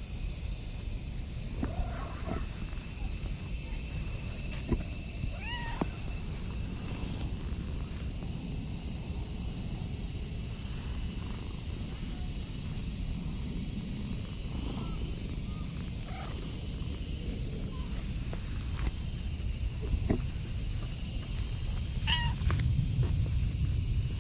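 Orange tabby cat meowing several times in short, curving calls, the clearest about five and a half seconds in and near the end, over a steady high-pitched hiss and a low rumble.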